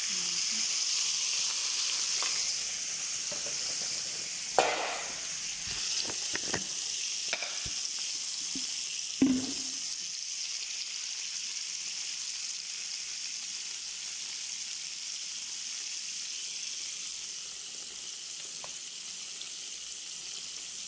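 Pieces of meat sizzling as they brown in hot oil in a frying pan, a steady hiss that eases off slightly over time. A few knocks sound, the two loudest about four and a half and nine seconds in.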